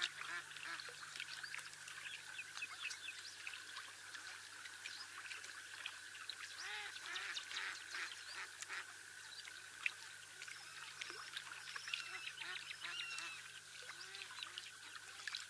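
Birds calling: many short, overlapping calls repeating throughout, with higher chirps over them.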